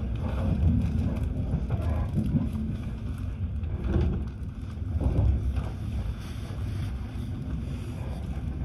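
FEX airport express train running at speed, heard from inside the carriage: a steady low rumble of wheels on rails, swelling a little twice near the middle.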